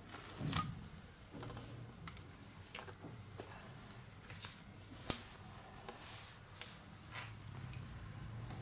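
Quiet handling of a replacement touch-screen glass panel: a short rustle as adhesive tape is peeled from it, then a scatter of small clicks and taps, the sharpest about five seconds in, over a faint low hum.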